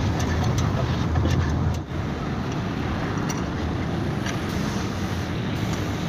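Steady low hum of a running motor vehicle with faint light clicks over outdoor background noise. The hum is strongest for the first two seconds, dips sharply, then goes on more weakly.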